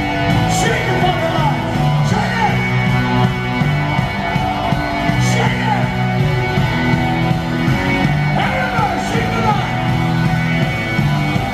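Loud live rock band playing at full volume, with a repeating bass line under electric guitar and drums.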